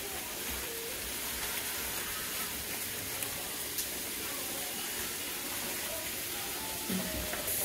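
Sliced turkey smoked sausage and bell peppers sizzling steadily in a frying pan on the stove.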